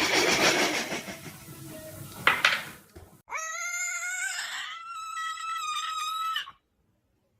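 A cat's long, drawn-out meow, about three seconds, rising in pitch at the start and then held steady. Before it, a hissing, rushing noise fades out over the first couple of seconds.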